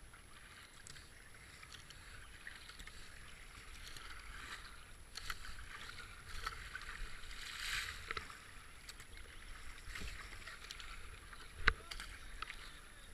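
Kayak paddle strokes: the blades dipping, splashing and dripping water beside the hull as the boat glides on calm water, with a sharp knock near the end.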